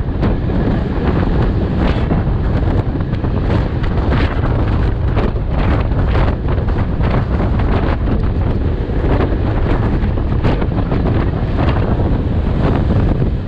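Strong wind blasting the microphone from a moving freight train, a loud steady rush with frequent irregular knocks and rattles.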